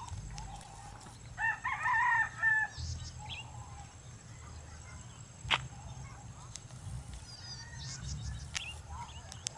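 A rooster crows once, a stepped, pitched call lasting a little over a second, starting about a second and a half in. A single sharp click comes near the middle and a few faint high chirps near the end, over a steady low rumble.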